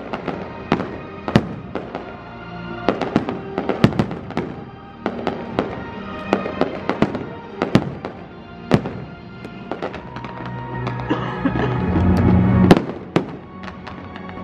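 Fireworks display: shells bursting in sharp, irregularly spaced bangs, with a dense, loud volley near the end. Music plays throughout.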